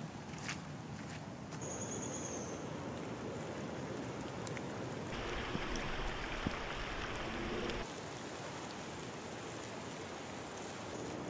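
Steady rain falling on wet leaf litter, with a few single drips into a puddle. From about five seconds in to nearly eight, a louder rush of a swollen, flooded creek cuts in and stops suddenly.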